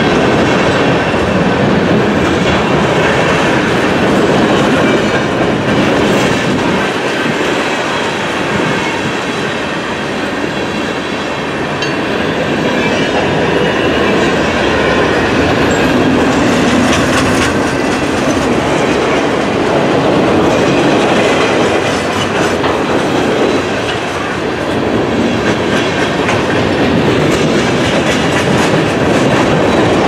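Freight cars of a long, heavy mixed-freight train rolling slowly past close by, steel wheels clicking steadily over the rail joints. The cars are a mix of flatcars, boxcars, covered hoppers and tank cars, with the train working slowly upgrade.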